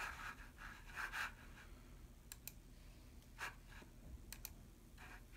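Faint clicking and rustling at a computer desk: two quick double clicks, the first about two seconds in and the second about two seconds later, among soft handling and rubbing noises.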